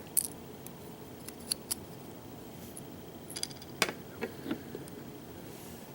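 Light metallic clicks and ticks, scattered and irregular, of small pin tumbler lock parts (pins and springs) being handled as the lock is taken apart.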